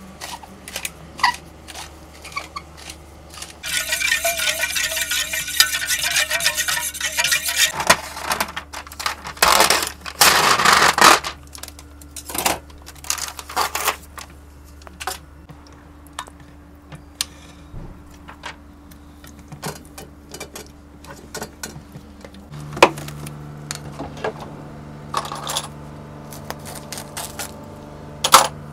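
Food-preparation handling sounds: scattered metallic clinks and scrapes of a steel bowl and utensils, with two longer spells of crinkling plastic packaging, one lasting about four seconds a few seconds in and a shorter one about ten seconds in.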